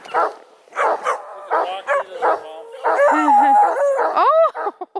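Redbone Coonhound puppies baying and barking in a run of short calls. Two voices overlap a little after three seconds in, and near the end comes one drawn-out bay that rises and then falls.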